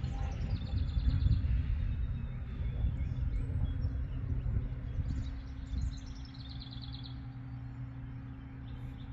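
A songbird singing twice, each song a quick run of high notes falling in pitch, over a low wind rumble on the microphone and a steady low hum.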